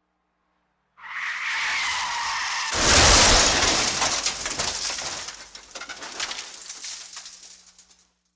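Car tyres screeching in a skid for under two seconds, then a loud crash of impact, followed by debris and metal clattering and rattling that fades away over about five seconds.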